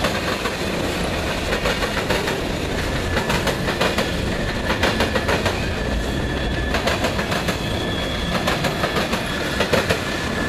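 Freight train of covered hopper cars and tank cars rolling past close by, its steel wheels clattering over the rail joints in a rapid, uneven run of knocks over a steady rumble.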